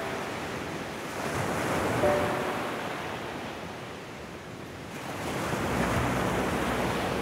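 Small waves washing up onto a sandy beach, the surf swelling and easing: it fades about four seconds in, then builds again.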